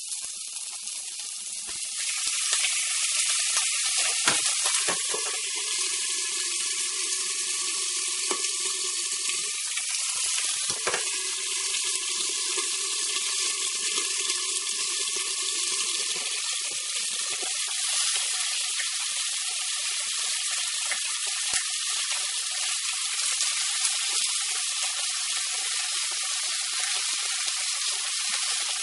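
Cubed mutton sizzling in hot peanut oil in a pressure cooker: a steady hiss that gets louder about two seconds in, with a couple of sharp knocks.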